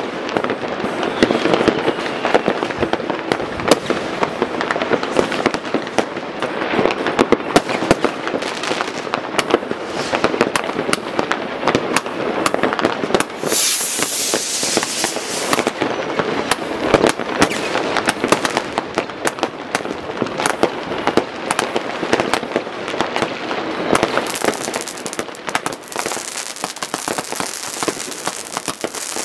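Many fireworks and firecrackers banging and crackling all over a town, an unbroken barrage of bangs. A stretch of hissing stands out about halfway through and again near the end.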